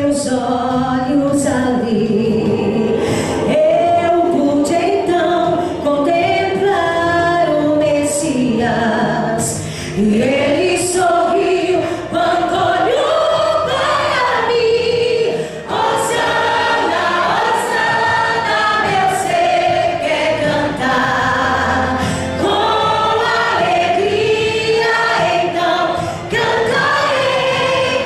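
Church choir singing a gospel worship song, many voices together.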